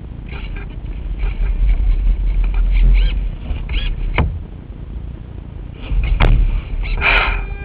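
Gusty wind buffeting the microphone of a camera mounted on a small radio-controlled sailing yacht, the rumble swelling twice with the gusts. Short rising-and-falling whines, two sharp clicks and a brief noisy burst with a steady whine near the end come through over it.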